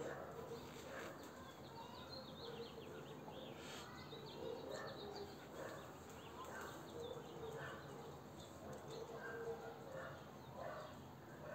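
Small birds chirping and twittering in quick, high, irregular calls over faint background noise.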